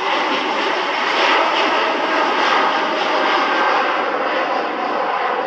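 Boeing 787 airliner's twin turbofan engines running loud and steady as the jet rolls along the runway, a dense rush of engine noise with a faint steady whine through it.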